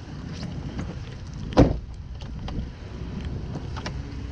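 Car door shutting with a single loud thump about one and a half seconds in, over a steady hiss of rain with scattered drops ticking on the car.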